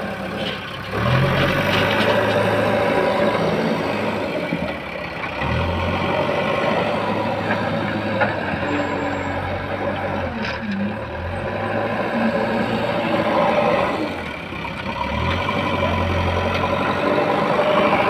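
JCB backhoe loader's diesel engine running, revving up several times as the machine moves, with the engine note rising about a second in, again around five seconds and near fifteen seconds.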